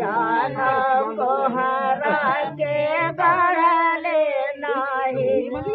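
Female voices singing a dehati folk song for the bans gadne (bamboo-planting) ritual, unaccompanied, in short phrases with brief breaks between them.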